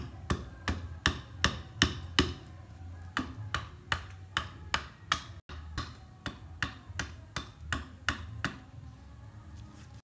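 Small hatchet chopping at the edge of a jackfruit-wood slab, trimming chips off its rim: quick, sharp strikes about three a second that stop a little before the end.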